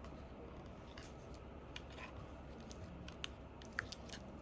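Faint, irregular small clicks and scrapes of hand tools working at an iPhone XR's glued-down battery as it is pried loose, with a sharper tick about three and a half seconds in.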